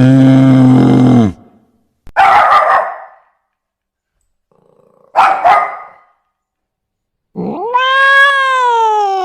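Animal calls, one after another: a cow's low moo ends about a second in, then two short rough calls a few seconds apart, then a long, pitched, wavering call starts near the end.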